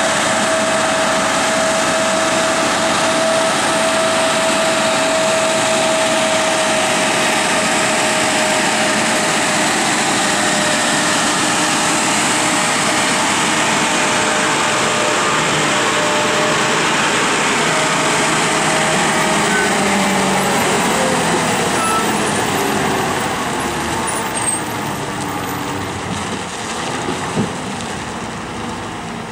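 Heavily loaded lorry's diesel engine running under load as the truck drives slowly past and into a hairpin bend. The engine note drops in pitch about two-thirds of the way through and the sound then fades as the truck pulls away.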